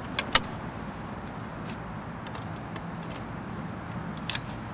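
Beach umbrella being fitted onto its lower pole and opened: a few sharp clicks and knocks from the pole and umbrella, the loudest about a third of a second in, over a steady low outdoor background noise.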